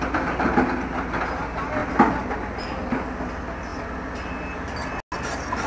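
Case hydraulic excavator working with its diesel engine running and its arm moving, with metallic clanks, the sharpest about two seconds in. The sound cuts out for an instant near the end.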